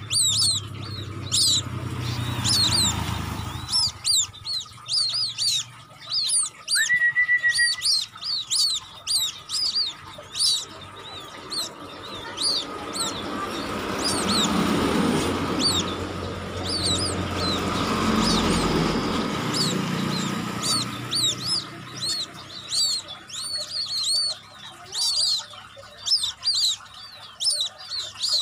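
Newly hatched white-breasted waterhen chicks and a quail chick peeping continuously: thin, high cheeps, several a second. Road traffic passes in the background, swelling early on and again through the middle.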